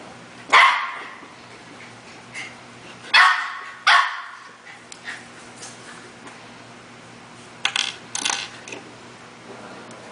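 A dog barking: one bark, two more about three seconds in, and a quick pair near the end.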